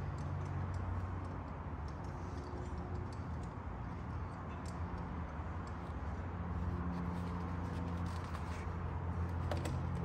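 A few faint clicks and taps of plastic console trim as the shift boot and bezel are pressed back into the center console, over a steady low hum.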